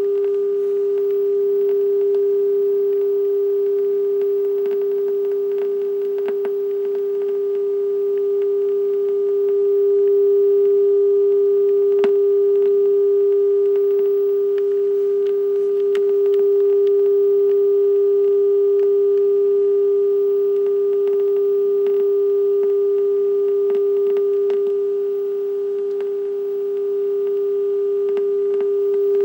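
The low-pitched 'black screen of death' tone on the end of a 1986 View-Master Video VHS tape: one steady, unbroken tone, played back through a TV speaker with the volume turned up. There are a few faint ticks, one about twelve seconds in and another about sixteen seconds in.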